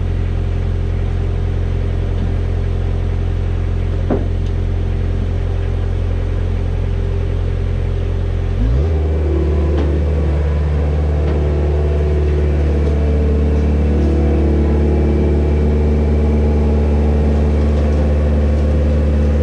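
Skid steer engine running steadily at low speed, then throttled up sharply about halfway through and held at a higher steady speed.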